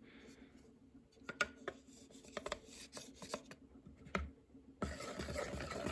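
Faint, irregular clicks and light scrapes of a wooden spatula stirring pancake batter against a ceramic bowl.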